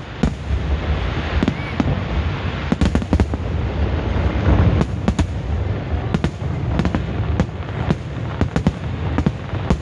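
Aerial fireworks display: a continuous low rumble of bursting shells with many sharp cracks and pops overlapping throughout, coming in quick clusters at times.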